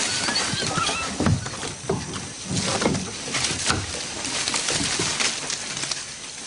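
Leafy branches rustling and snapping as young orangutans handle nest-building material, with a few short animal calls in the middle and thin bird chirps near the start.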